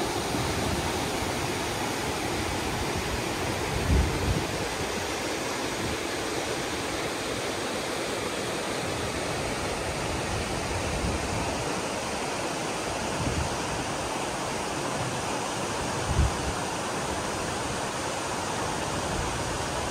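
A clear mountain river rushing over rocky rapids: a steady, even roar of running water. Two brief low thumps break through, about four seconds in and again near the end.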